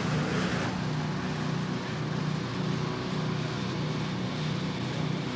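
Two-stroke snowmobile engines running steadily, a low hum that wavers slightly without any sharp rise or pass.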